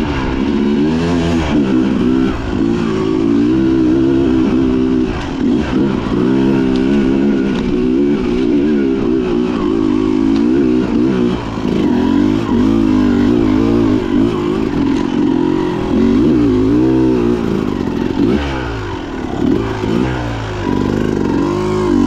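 Dirt bike engine running as it is ridden, its pitch rising and falling continually with the throttle.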